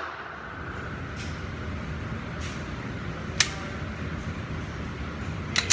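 Glock 19 Gen 4 pistol being handled, its metal parts clicking: two faint clicks, a sharp click about three and a half seconds in, and a louder double click near the end, over a steady low background noise.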